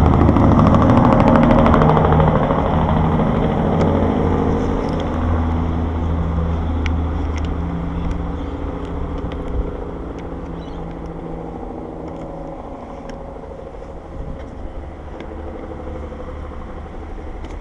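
A motor vehicle's engine running nearby with a steady low drone, loudest in the first few seconds and then fading away gradually. A few sharp clicks, like tool or ratchet clicks, sound over it.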